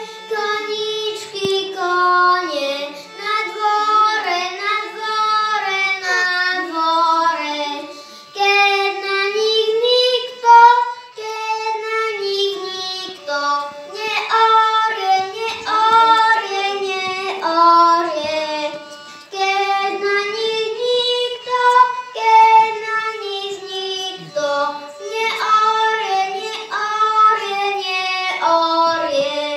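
A boy singing a Slovak folk song into a microphone in phrases of a few seconds with short breaths between, a violin played along with him.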